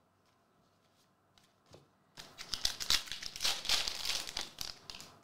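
Foil wrapper of an Upper Deck Goodwin Champions trading-card pack being torn open and crinkled by hand, starting about two seconds in after a couple of light clicks.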